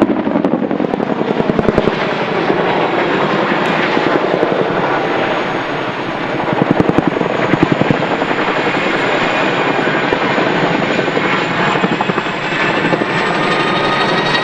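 RAF Boeing Chinook HC3 tandem-rotor helicopter flying overhead: loud, continuous rotor and engine noise, with a rapid rhythmic thudding of the blades that swells about two seconds in and again around seven seconds.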